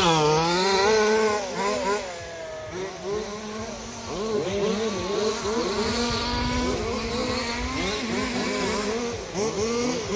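Radio-controlled off-road model cars' small engines revving up and down in quick, repeated swoops of pitch as they are driven.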